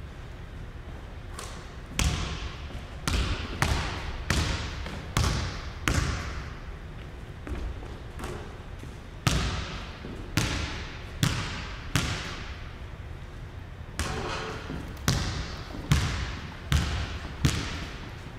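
A basketball being dribbled on a hardwood gym floor. It starts about two seconds in, with separate bounces at an uneven pace, and each bounce echoes around the large hall.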